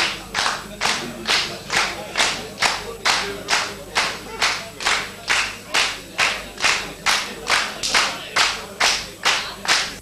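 Concert audience clapping in unison, a steady slow handclap of about two and a half claps a second, calling the band back for an encore.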